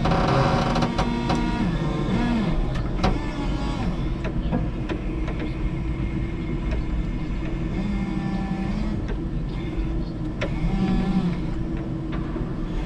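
Electric forklift running, its motor whine rising and falling in pitch several times over a steady low hum, with scattered clicks and knocks from the mast and carriage.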